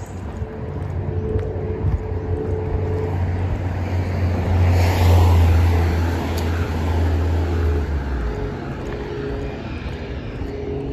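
A car passes close by from behind. Its engine hum and tyre noise swell to a peak about halfway through, then fade as it drives on down the street.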